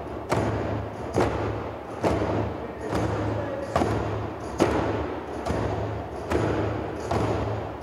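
Djembe drums struck in a slow, even beat, a little more than one stroke a second, each a deep thump with a lingering low ring: bass strokes, the first stroke taught to a beginner.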